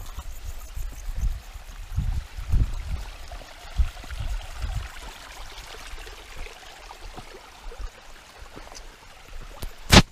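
Mountain stream running steadily, with scattered low thumps and one sharp click near the end.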